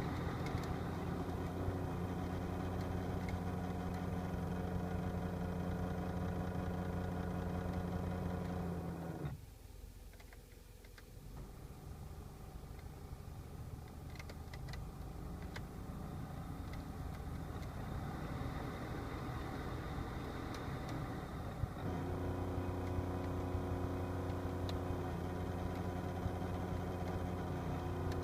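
Mitsubishi Delica D:5 heater/AC blower motor running with a steady, several-toned hum, the abnormal noise the blower is making. The hum cuts out abruptly about nine seconds in, leaving a quieter sound that slowly builds with a few faint ticks. The full hum comes back abruptly a little after twenty seconds.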